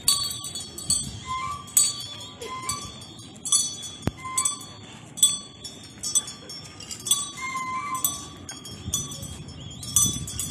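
Metal bells struck in an uneven repeating pattern, about one or two strikes a second, each strike ringing briefly with a clear metallic tone: traditional percussion accompanying a dance procession.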